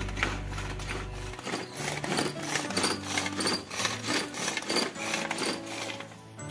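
Hand-operated vegetable chopper being worked, its blades rattling and rasping through sliced onion and green chilli in repeated strokes, about three a second.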